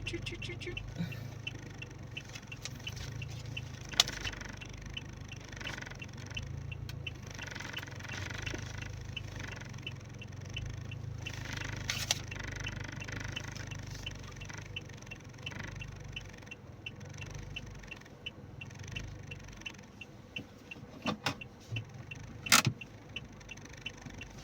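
Car running, heard from inside the cabin: a steady low hum with a fast regular ticking. There are a few sharp clicks, and a handful of louder knocks come near the end.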